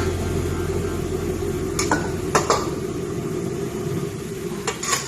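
Metal utensil clinking against a cooking pan a few times while food is put back in the pan, over a steady low hum that stops about two and a half seconds in.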